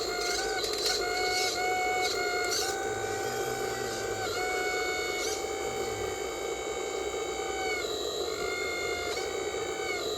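Steady whine of a radio-controlled construction model's small electric motors and gearboxes, stepping up and down in pitch several times as the controls are worked, with a short dip a little before the end.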